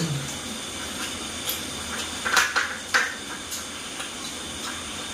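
Grasshoppers frying in hot oil: a steady sizzle, with a few short scrapes about two and three seconds in.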